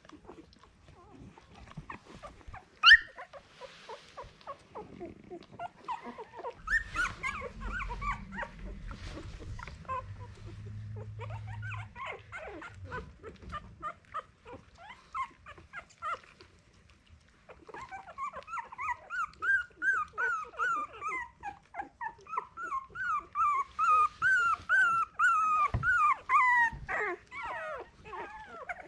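Fifteen-day-old Miniature Australian Cattle Dog puppies whimpering and squealing as they jostle and nurse. A sharp, loud yelp comes about three seconds in, and near the end there is a long run of rapid, high whimpers.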